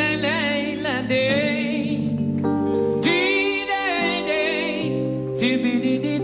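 Soca music: a man's voice sings long held notes with vibrato over sustained instrumental chords.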